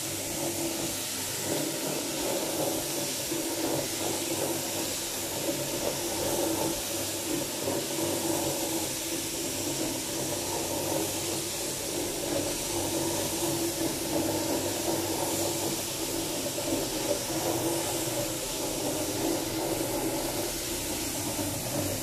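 Single-disc rotary floor polishing machine running steadily, its pad spinning on a wet polished concrete floor: a constant hiss with a mid-pitched motor hum underneath.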